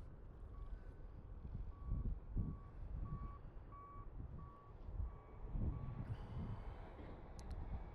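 Construction vehicle's reversing alarm beeping at one steady pitch, about nine beeps a little over one a second, stopping about six seconds in, under gusts of wind rumbling on the microphone.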